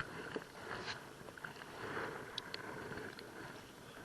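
Kayak paddle strokes swishing and splashing in lake water, with a few light clicks about halfway through.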